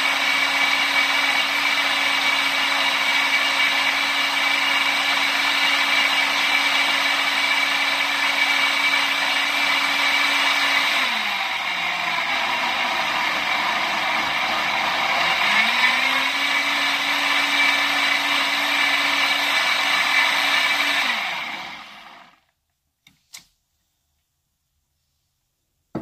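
Countertop blender running steadily while it blends a fruit and vegetable smoothie. Its motor pitch drops for a few seconds around the middle, then climbs back. Near the end the motor winds down and stops, followed by a single brief click.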